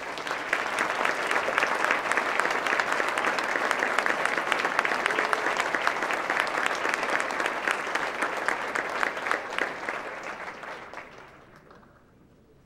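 Audience applauding: many hands clapping, swelling within the first second, holding steady, then dying away over the last two seconds or so.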